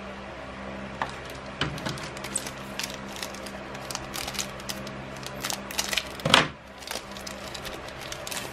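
Foil wrapper of a Magic: The Gathering set booster pack crinkling and tearing open in the hands: a run of sharp crackles, loudest about six seconds in, over a low steady hum.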